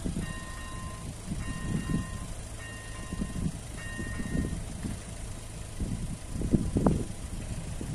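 Electronic level-crossing bell (AŽD ZV01/ZV02 type) ringing a clear pitched tone about once a second while the crossing barriers come down, stopping about halfway through once they are down. A low uneven rumbling noise runs underneath and is loudest near the end.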